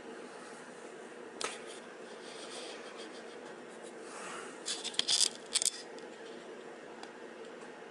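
Brief rustling and clicking handling noises, one about a second and a half in and a cluster of sharper ones around five seconds in, over a steady low hum.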